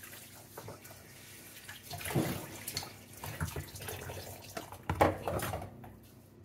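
Kitchen sink sounds: water from a tap running in short spells, with dishes and utensils knocking. Two louder bursts come about two seconds and five seconds in, and it quietens near the end.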